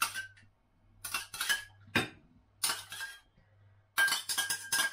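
Cutlery clinking against a plate and dishes while food is served: a string of sharp clinks with short ringing, coming faster near the end, over a faint steady low hum.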